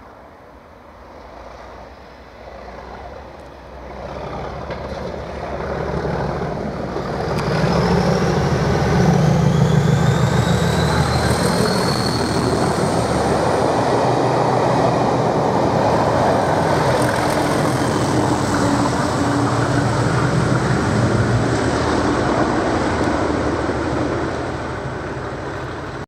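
Two Class 37 diesel locomotives working hard under full power, growing louder as they approach and run past, with the rush of the train over the rails. A high turbocharger whistle rises in pitch from about seven seconds in and then holds.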